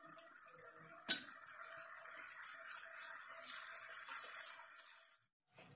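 Turmeric water and oil simmering in a pan with cumin seeds and bay leaves: faint, quick bubbling ticks over a soft steady hiss, with one sharper click about a second in. The sound cuts off abruptly shortly before the end.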